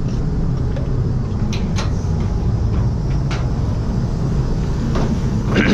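Steady low rumble of a spray booth's ventilation running, with a few light clicks and knocks.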